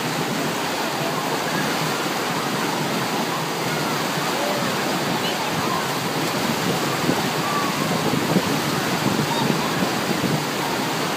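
Wave pool waves washing and breaking in a steady rush of churning water, with the voices and shouts of many swimmers mixed in.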